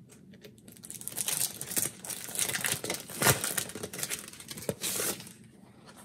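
Packaging crinkling and tearing as a vellum planner dashboard is unwrapped by hand, with one sharper, louder rip about three seconds in. The rustling stops about five seconds in.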